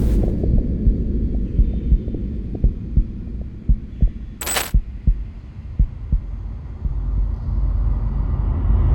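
Layered cinematic sound effects: a low rumble with irregular soft thumps and clicks, a sharp hit about four and a half seconds in, and a whoosh swelling up near the end.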